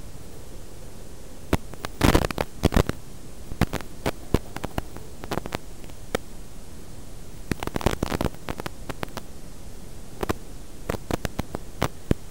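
Steady hiss of static from an analog FPV video receiver's audio channel, broken by clusters of sharp crackles and pops about two seconds in, near the middle and again near the end, typical of the 5.8 GHz video link breaking up.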